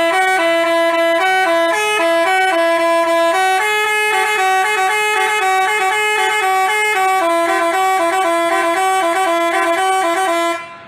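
Basuri telolet bus horn playing a quick multi-note tune, stepping rapidly between a few pitches. It is loud and continuous and cuts off abruptly near the end.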